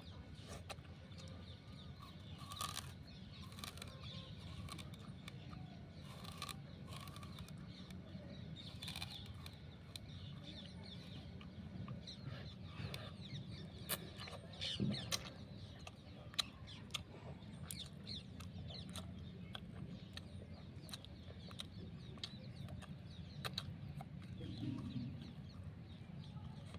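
Raw sugarcane being bitten and chewed: irregular sharp cracks and crunches, a few louder snaps about halfway through, over a steady low hum.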